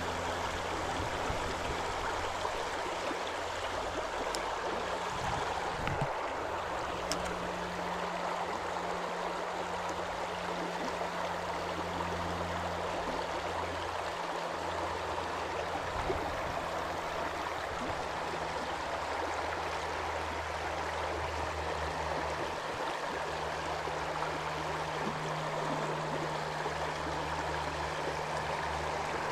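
Shallow river riffle running over stones: a steady rushing and babbling of water.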